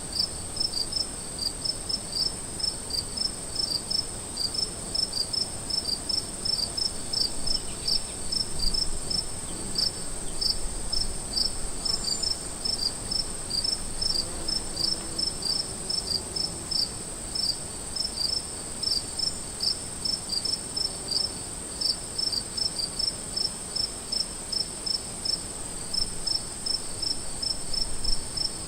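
Crickets chirping: short chirps repeating evenly, about two to three a second, over a steady high-pitched trill.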